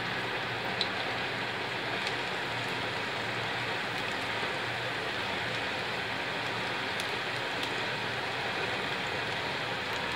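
Banana-flower fritters in gram-flour and rice-flour batter deep-frying in hot oil in a steel kadai: steady sizzling and bubbling, with a few light ticks.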